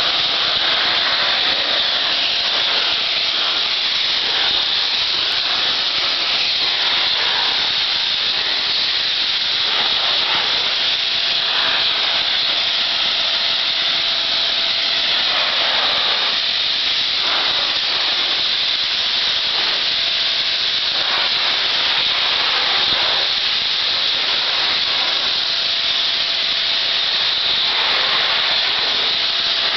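Triace pressure washer's high-pressure water jet spraying onto timber deck boards: a loud, steady hiss whose tone shifts slightly as the wand sweeps across the wood.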